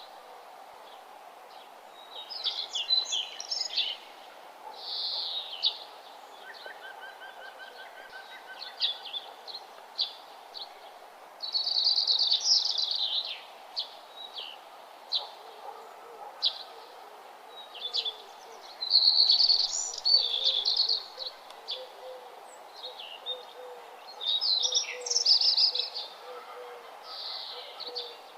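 Several wild birds chirping and singing in overlapping bursts of high chirps and quick trills, over a steady background hiss.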